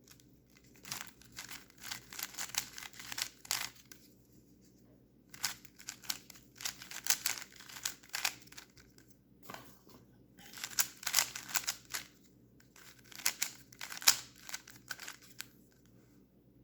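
MoYu Yulong 3x3 speed cube being turned by hand in quick bursts, its plastic layers clicking and scraping against each other; fresh out of the box, it turns tight and scratchy.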